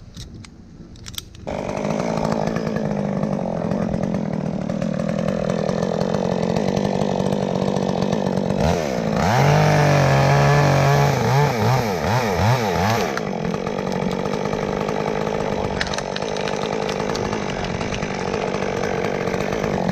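Chainsaw starting up about a second and a half in and running steadily, then revved up and down repeatedly for several seconds in the middle before settling back to a steady run.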